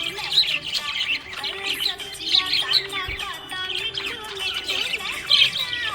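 Budgerigars chirping and chattering, a dense run of quick, overlapping chirps and warbles with no pause.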